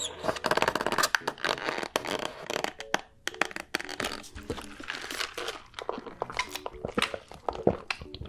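Close-miked eating: dense, irregular crunching and crackling of food being bitten and chewed.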